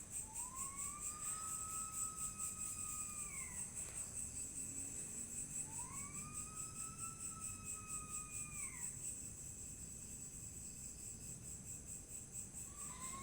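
Insects chirring steadily in a high, fast pulse, while a long whistling tone rises, holds level and falls away over about three seconds. The whistle sounds twice and starts a third time near the end; what makes it is unknown.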